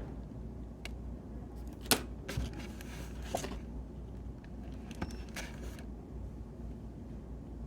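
Steady low brown-noise hiss, with a sharp click about two seconds in and a few brief rustles and clicks of desk handling after it.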